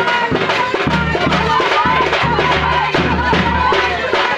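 Music with a steady drum and bass beat under a wavering melody line, in a folk or traditional style.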